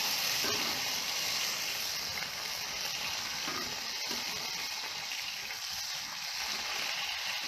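Large squid sizzling steadily as it cooks on a hot surface, a continuous frying hiss.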